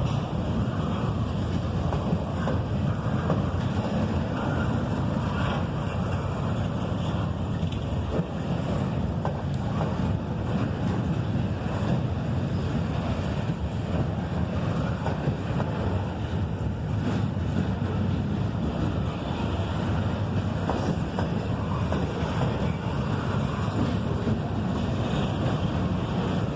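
Freight train cars rolling past on the rails: a steady low rumble of wheels on track with faint scattered clanks, mixed with wind on the microphone.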